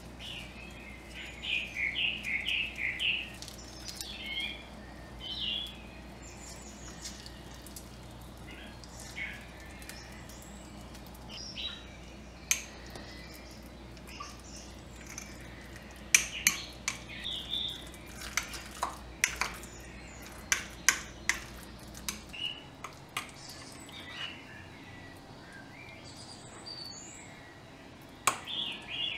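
Metal teaspoon clinking and scraping against a small glass jar, a run of sharp clinks in the second half and a few more near the end, as roasted garlic cloves are mashed into a paste. Birds chirp in the background.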